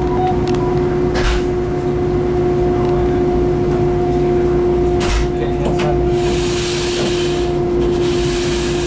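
Inside a moving Long Island Rail Road electric commuter train: steady running rumble with a constant motor whine, a few sharp clacks of the wheels over rail joints, and two stretches of high hiss in the second half.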